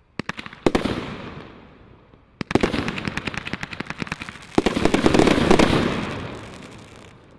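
Combination Roman candle firework firing shots that break into dense crackling. The crackling comes in three waves, starting near the start, about two and a half seconds in, and about four and a half seconds in. The last wave is the loudest and fades away near the end.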